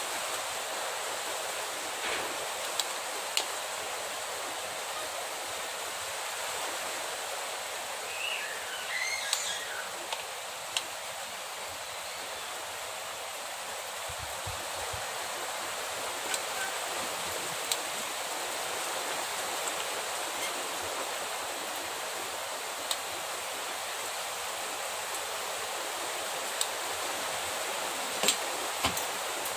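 Steady background hiss with scattered small clicks and taps from hands-on wiring work on a small amplifier circuit board.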